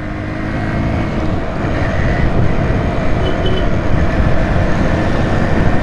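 Motorcycle on the move: heavy wind rumble on the microphone over the engine and road noise, growing steadily louder.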